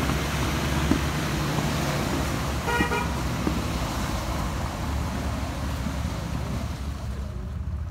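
Off-road vehicle's engine running steadily, with one short horn toot about three seconds in.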